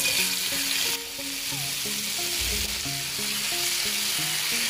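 Chopped onion hitting hot oil and ghee in a frying pan and sizzling hard, the sizzle starting suddenly and loudest in the first second, then settling to a steady sizzle as a spatula stirs the onion.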